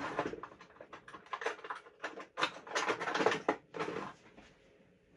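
Irregular clicks, scrapes and rustling of hands working a stiff plastic power connector and its wires, trying to push it onto a module it doesn't fit. Busiest about halfway through, then dying away near the end.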